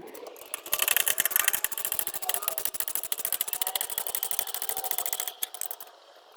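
Hand ratchet clicking rapidly and evenly for about four and a half seconds as a bolt is spun, stopping near the end.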